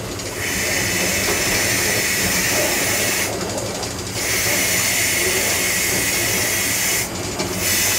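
Steam locomotive's vacuum-brake ejector hissing loudly as its steam valve is opened, drawing air out of the train pipe to release the brakes. The hiss cuts off about three seconds in, starts again a second later and stops near the end.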